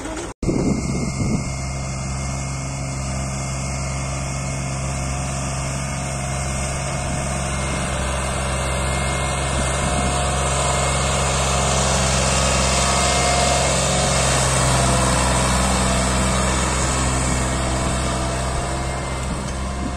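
New Holland 3600-2 tractor's three-cylinder diesel engine running steadily under load, pulling a fully loaded trolley.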